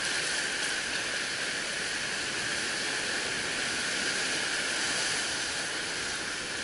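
Steady rushing hiss of surf breaking and washing over rocks along the shoreline.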